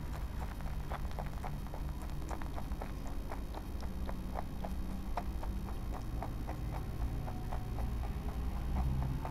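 Rabbit chewing a crisp chip close to the microphone: steady, rhythmic crunching, about three to four crunches a second.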